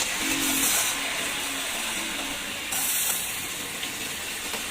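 Engine running just after start-up while old automatic transmission fluid is pumped out of a disconnected transmission cooler line, a steady hissing gush of fluid.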